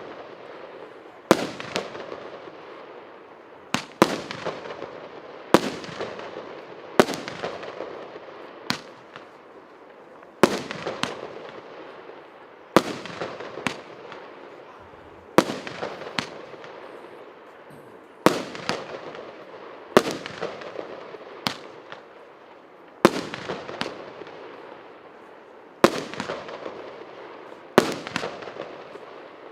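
A 1.25-inch, 50-shot firework battery (cake) firing its tubes one after another: about fourteen sharp bangs, roughly every two seconds at uneven spacing, each trailed by a fading crackly wash.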